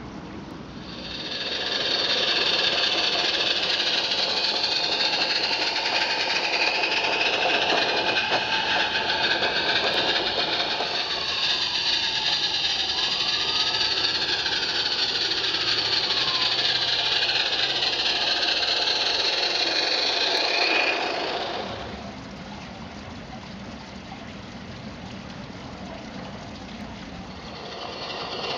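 Small live-steam garden-railway locomotive running with a fast, even chuffing and hiss. It is loud for about twenty seconds, then drops away to a quieter running sound and grows louder again near the end.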